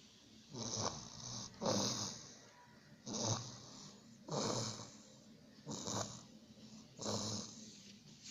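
Snoring: a steady run of about six snores, roughly one every second or so, in and out breaths alternating.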